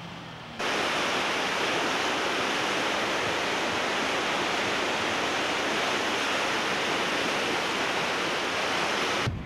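Fast-running floodwater rushing and churning close by, a loud, steady wash of water noise that starts abruptly about half a second in and cuts off just before the end.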